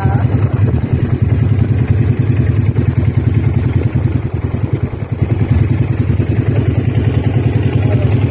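Outrigger boat (bangka) engine running steadily under way: a loud, low, even drone with a fast pulsing beat, dipping slightly about halfway through, with water rushing along the hull.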